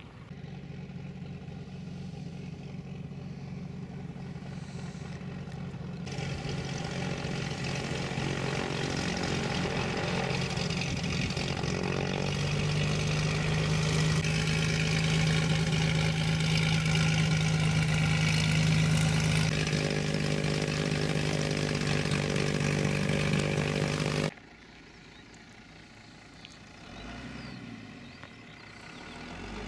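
Single-engine light aircraft's piston engine and propeller running as the plane taxis, a steady drone that grows louder as it comes closer. The sound cuts off abruptly about 24 seconds in, leaving a much quieter background.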